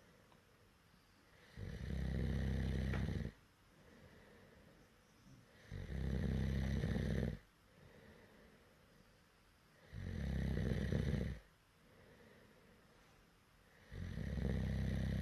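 A person snoring really loud and evenly: four long snores about four seconds apart, with a softer breath out between each.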